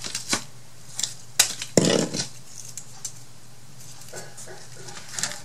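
Light taps and clicks of small craft pieces being handled on a tabletop, with a brief louder rustle about two seconds in.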